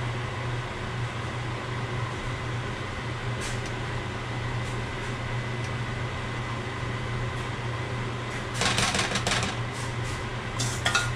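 Cooked rice being scooped out of a steel pot with a metal spoon and spread over a large pan: a burst of scraping about eight and a half seconds in and a few sharp clinks near the end, over a steady low fan hum.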